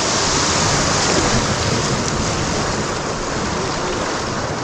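Rushing whitewater of a river rapid, a steady noise of churning water.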